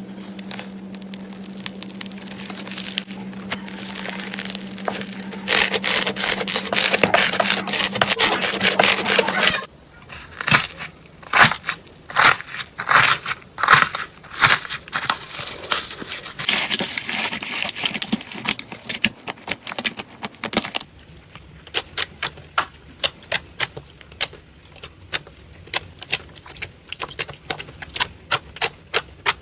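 Slime being squeezed and poked, giving crackling, clicking pops of trapped air. There is a dense crackling rush over a low steady hum in the first ten seconds. It stops abruptly, and then come separate loud pops, then quicker, lighter clicks for the last eight seconds or so.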